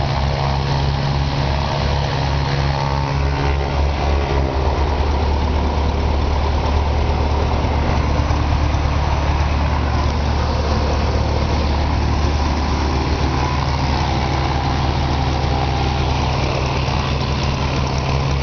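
Cessna 150G's Continental O-200 four-cylinder air-cooled engine and propeller, heard from inside the cabin, running up from a fast idle to full-throttle static RPM about four seconds in, holding there, then easing back toward idle about fourteen seconds in.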